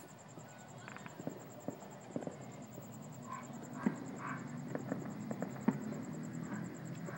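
Distant fireworks and firecrackers popping and crackling irregularly, thickening after a few seconds, with two sharper cracks standing out in the middle.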